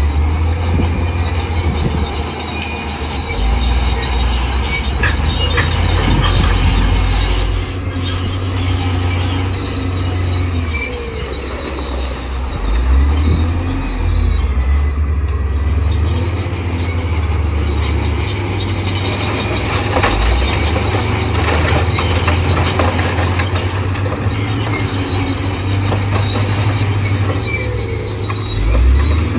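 Heavy diesel earthmoving machinery working: a deep engine rumble that rises and falls with load, over high metallic squeals and occasional knocks.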